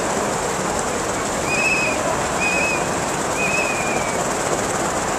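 Steady hubbub of a crowd and street on a wet square, with three short trilled whistle blasts between about one and a half and four seconds in.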